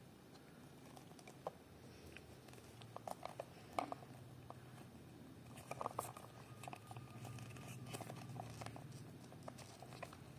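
Earphone packaging and small parts handled during an unboxing: scattered light clicks, taps and crinkles, busiest around four and six seconds in, over a low steady hum.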